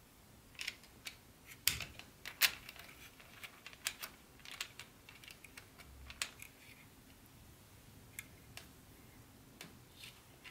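Light clicks and taps of an HO-scale model train caboose being set onto its track by hand, its wheels knocking on the rails and plastic roadbed. There is a quick run of sharp clicks in the first few seconds, then a few scattered ones.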